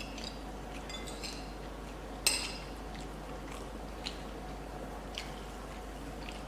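Cutlery clinking against a plate during a meal: one sharp ringing clink about two seconds in, and a few fainter taps.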